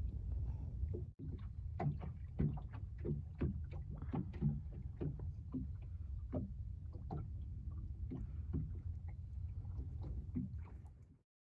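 Motorboat underway on a lake: a steady low rumble of engine and wind, with repeated short slaps, about two a second, of small waves against the hull.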